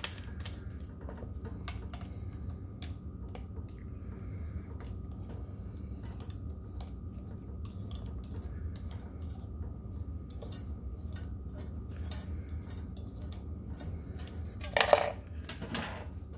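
Small metal clicks and clinks of a hex key turning bolts by hand into the aluminium hub-motor cover of an electric scooter wheel, the bolts being started by hand so they don't cross-thread. A louder metallic clatter comes near the end.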